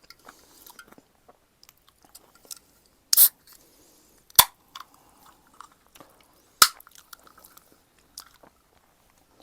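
Close-miked chewing and biting of Jjapaghetti noodles and green onion kimchi, many small wet mouth clicks, with a short loud noisy burst about three seconds in and two sharp clacks later on.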